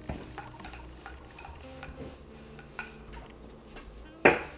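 Wooden rolling pin rolling flatbread dough on a floured stone countertop: light clicks and taps as the pin's handles and body move against the counter, with one louder knock near the end.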